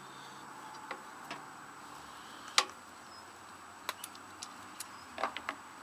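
Scattered, irregular sharp metallic clicks and clinks of hand tools working at a riding mower's engine and starter, the loudest about two and a half seconds in and a small cluster near the end.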